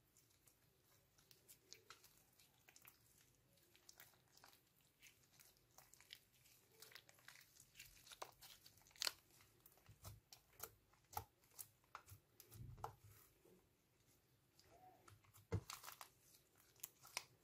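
Clear slime mixed with pink makeup and glitter being stretched and squeezed by hand: faint sticky crackles and small pops, sparse at first and coming thick and fast in the second half.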